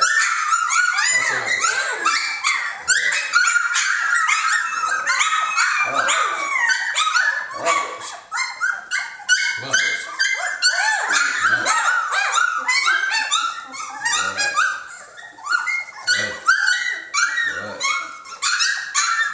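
A litter of three-week-old Jamthund (Swedish Elkhound) puppies squealing and whining together, many short high-pitched cries overlapping continuously as they crowd in to nurse.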